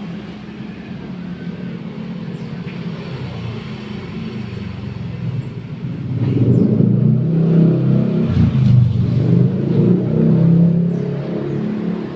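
A carpet-spinner drying machine running with a steady low hum. It grows louder and rougher about six seconds in.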